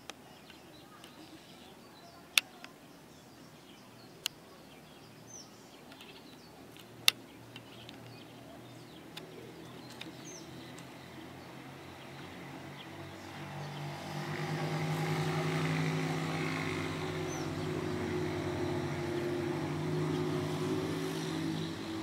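A motor vehicle's engine hum swells in about thirteen seconds in and holds steady as the loudest sound. Before it, faint high bird chirps and three sharp clicks.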